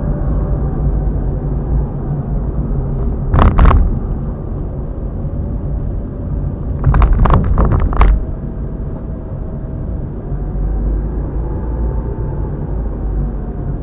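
A car driving along a highway: a steady low road and engine rumble, with a short loud knock about a third of the way in and a quick run of several knocks a few seconds later.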